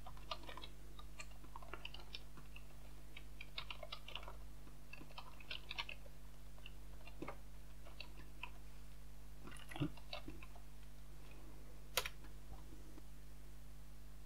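Computer keyboard typing, faint: quick runs of keystrokes for the first several seconds, then a few single key presses farther apart, with one sharper click about twelve seconds in. A steady low hum sits underneath.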